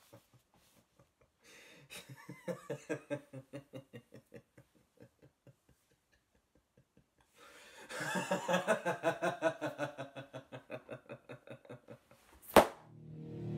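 A young man laughing in bursts of quick chuckles: a first run about two seconds in, then a longer, louder fit of laughter from about eight seconds in. A single sharp click comes near the end.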